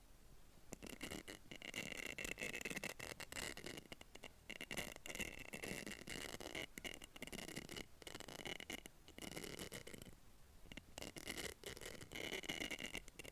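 Rapid scratching and clicking of a tool against a small hollow capsule, over a steady high whine, with a short lull about ten seconds in.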